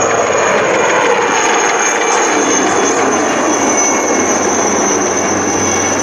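Sud Aviation SE 3160 Alouette III helicopters flying past in formation. The high whine of their Turbomeca Artouste turboshaft engines sits over the rush of the rotors, and the whine falls slowly in pitch.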